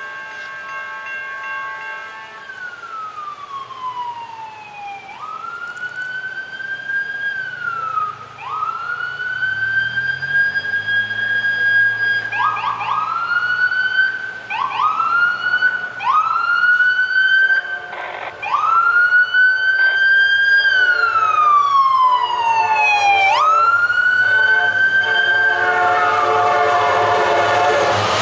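A siren wailing in long rising-and-falling sweeps, switching to quicker, shorter sweeps for a few seconds in the middle. Under it a low diesel locomotive hum grows, and the noise of the approaching train builds near the end.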